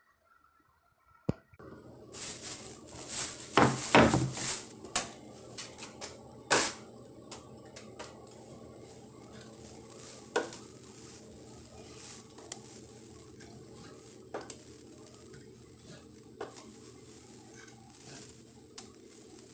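Steel drywall taping knife scraping joint compound on a metal mud pan and spreading it over the wall. Loud scrapes and clanks start after about a second and a half of near silence, then quieter smoothing strokes go on with occasional clinks of knife on pan.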